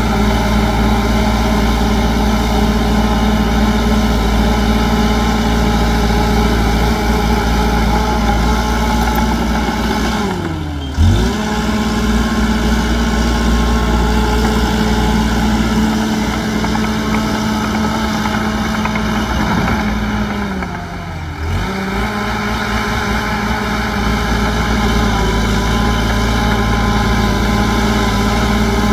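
Heavy earthmoving machine's diesel engine running hard and steady. Twice, about ten seconds apart, its pitch drops sharply and comes straight back up, as the engine is briefly pulled down and recovers.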